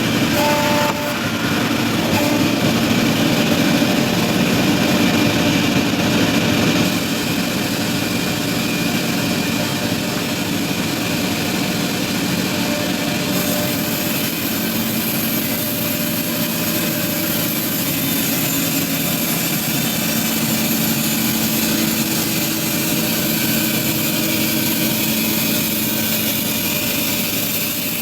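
Steady, loud drone of an engine-driven machine running without a break, with two steady horn-like tones that stop about a second in.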